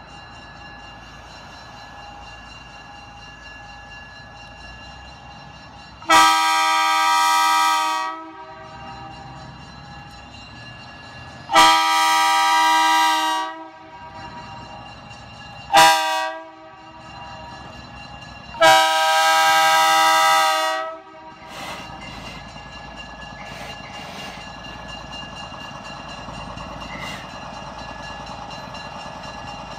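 Budd rail diesel car's air horn blowing the grade-crossing signal: two long blasts, a short one and a final long one, each a chord of several tones. The car's running sound then grows steadily louder as it nears the crossing.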